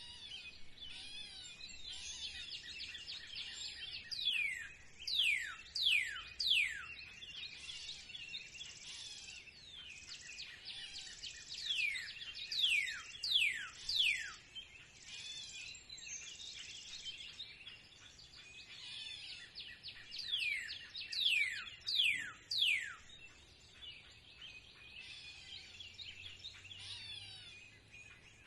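Spring bird chorus: many birds chirping and twittering together. Over it, one bird sings a phrase of three or four sharp, steeply falling whistles three times, about every eight seconds.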